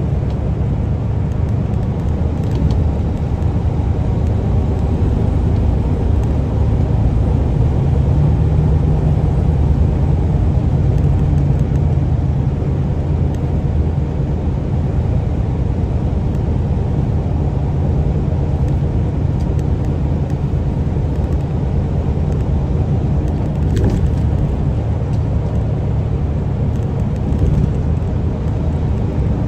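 Semi truck's diesel engine running steadily with tyre and road noise, heard inside the cab while cruising at freeway speed: a constant low hum.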